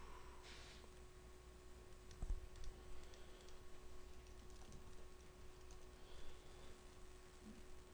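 Faint, scattered clicks from operating a computer, heard over a steady low electrical hum.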